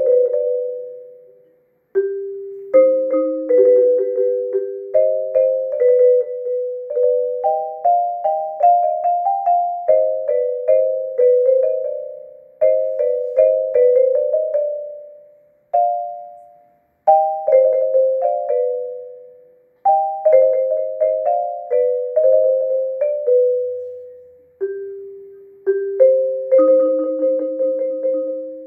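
Marimba played with yarn mallets: a solo melody of single struck notes in the middle register, each ringing briefly and dying away. It goes in phrases with short breaks between them, and near the end it settles on two notes struck over and over, then left to ring.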